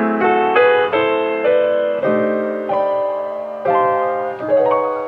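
Background piano music: a slow melody of single notes and chords, each struck and left to ring and fade.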